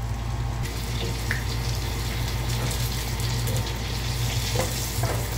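Breaded chicken cutlet shallow-frying in oil in a pan, a steady sizzle over a low steady hum. Metal tongs lift the cutlet near the end, with a couple of faint clicks.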